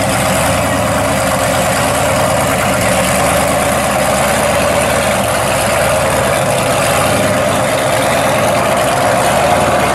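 1972 Pontiac GTO's V8 engine running at a steady low idle as the car creeps away at walking pace.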